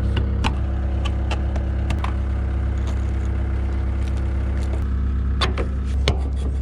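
Skid steer engine running at a steady speed, with scattered sharp clicks and knocks over it.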